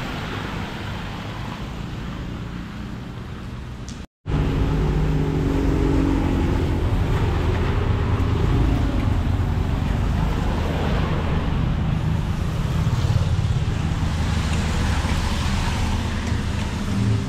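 Traffic noise on a rain-wet street. After a sudden break about four seconds in, a vehicle engine hums close by over the steady road noise.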